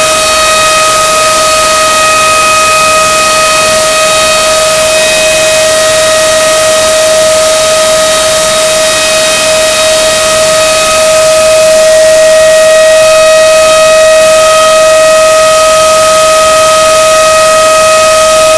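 Loud, distorted brown chicken scream sound effect, held as one steady unbroken note with a harsh hiss over it, a little louder from about eleven seconds in.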